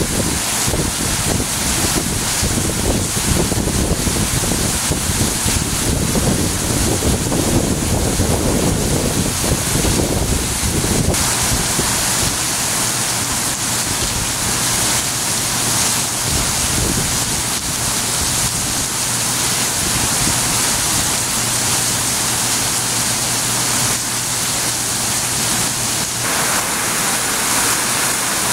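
Heavy rain pouring steadily, with gusty wind buffeting the microphone through about the first ten seconds. Near the end a stream of runoff water splashing down close by joins the rain.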